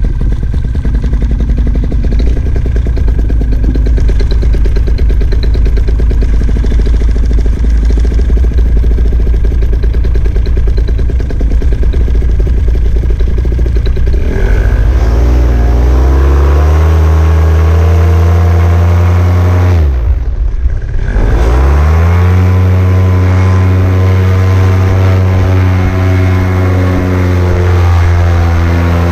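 Vittorazi Moster 185 single-cylinder two-stroke paramotor engine, freshly started, running steadily at low revs. About fourteen seconds in it revs up, dips briefly, then climbs back to steady high revs for the launch run.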